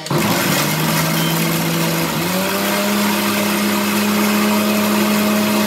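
Electric mixer grinder's motor switching on and running loudly as it grinds roasted whole spices for garam masala in its steel jar. Its hum steps up to a higher pitch about two seconds in and then holds steady.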